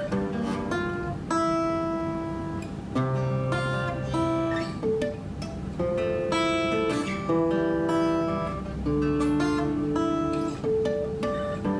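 Acoustic guitar playing an instrumental passage, plucked and strummed chords ringing one into the next, with no singing.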